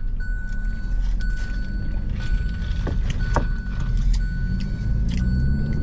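Car engine and road noise heard inside the cabin while driving, the engine note slowly rising and falling.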